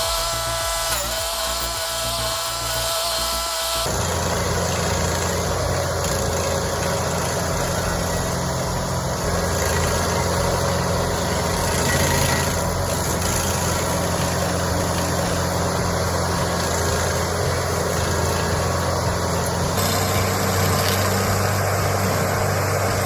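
Stump grinder running under load, its engine humming steadily while the cutter wheel grinds into wood. The sound changes abruptly about four seconds in, from a high steady whine to a lower engine hum with rough grinding, and changes again near the end.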